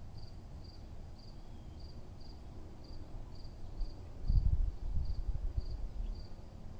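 A cricket chirping steadily in short high pulses, about two a second. About four seconds in, a low rumbling noise swells for a couple of seconds and is louder than the chirping.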